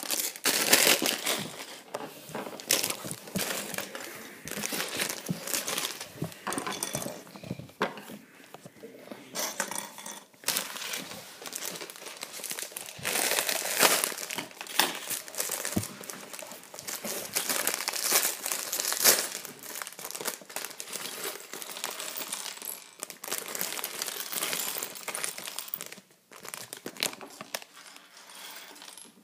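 Thin clear plastic bag crinkling and rustling as it is handled and opened, with scattered sharp clicks.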